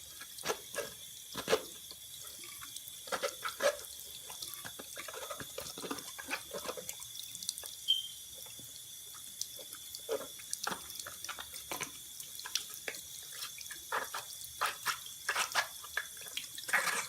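Warm tap water running into a sink and splashing irregularly off a rubber RC car tire held under the stream, rinsing WD-40 out of the rubber.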